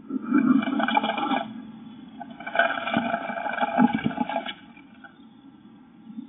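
Blue tit fluttering its wings inside a wooden nest box, close to the microphone: two rushing bursts of wingbeats and scrabbling, the first just after the start and the second about two and a half seconds in.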